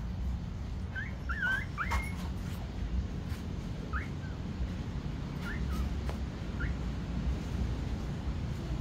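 Young puppies whimpering in short, high squeaks: a cluster of several about a second in, then a few single ones spread through the rest, over a steady low rumble.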